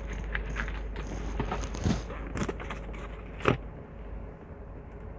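Clicks, taps and light scrapes from a small container of herbal capsules being handled as capsules are taken out. There are a few sharper knocks, the loudest about three and a half seconds in, and then it goes quieter.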